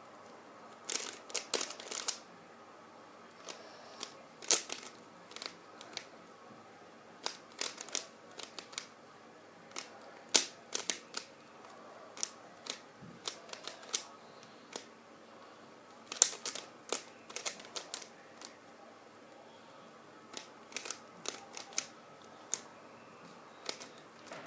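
Rubik's cube being turned quickly by hand: irregular clusters of sharp plastic clicks and clacks as the layers snap round during a speed solve.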